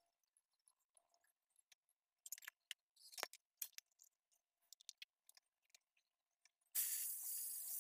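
Small clicks and scrapes of steel utensils and bowls, then near the end a sudden loud sizzle as wet diced potatoes are tipped into hot oil in a pan, hissing on steadily.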